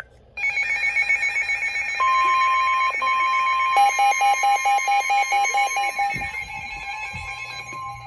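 Overlapping weather-radio alert tones: a high warbling tone, then the steady 1050 Hz NOAA Weather Radio warning tone from about two seconds in. From about four to six seconds in there is also fast beeping at about five a second. These tones announce that a new warning is about to be broadcast.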